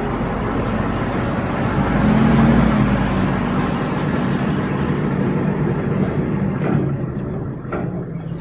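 Ford pickup truck driving slowly past with its engine running, loudest about two to three seconds in, towing a tandem-axle flatbed trailer. A few short knocks come near the end.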